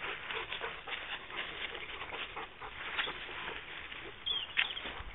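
Dogs and footsteps moving through dry leaf litter and undergrowth: a steady crackling rustle of leaves and twigs, with a brief high whine about four seconds in.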